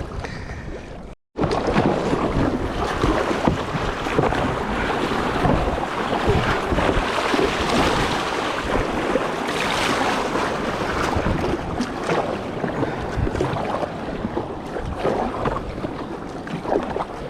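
Surf and rushing water around a plastic kayak coming in through breaking waves, with wind buffeting the microphone; the sound drops out completely for a moment about a second in.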